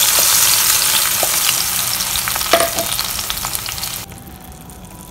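Wet green masala paste sizzling loudly in hot mustard oil in a wok as it hits the oil, with a few light clicks. The sizzle slowly weakens, then drops away sharply about four seconds in.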